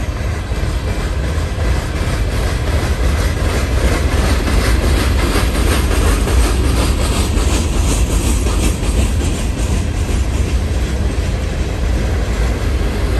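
Empty coal hopper cars of a Union Pacific coal train rolling past, a steady rumble of steel wheels on rail. Rapid clickety-clack of wheels over the rail joints comes in around the middle and then eases.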